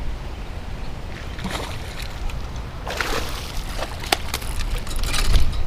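A hooked fish splashing at the water's surface in a few short bursts, over a steady low rumble of wind on the microphone.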